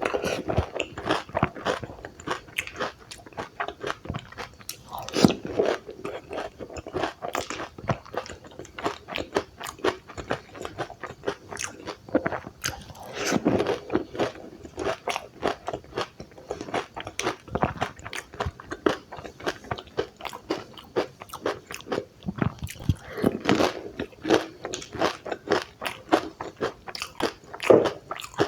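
Someone eating dahi puri: crisp, hollow puri shells topped with yogurt, chutney and bhujia cracking between the teeth, with dense crunching and chewing throughout and a louder bite every few seconds.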